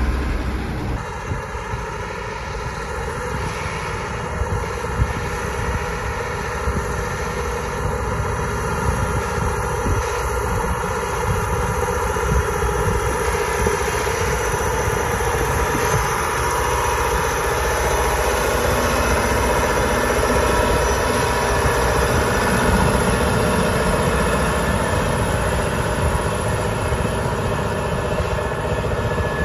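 Big articulated John Deere 8850 tractor's V8 diesel running steadily under load as it pulls a subsoiler through the field, slowly getting louder.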